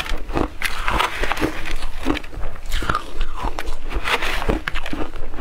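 Frozen shaved ice crunched and chewed close to a clip-on microphone: a quick, irregular run of crisp crunches, several louder ones standing out.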